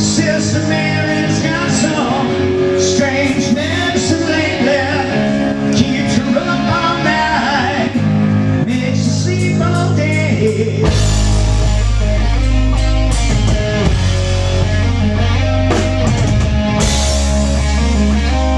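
Live rock band playing: singing over electric guitars and drums, with a heavy low bass line coming in about eleven seconds in.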